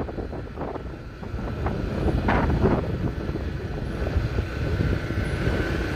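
Wind buffeting the microphone over a steady low rumble while moving along a street, with a brief louder gust about two seconds in and a faint high whine coming in near the end.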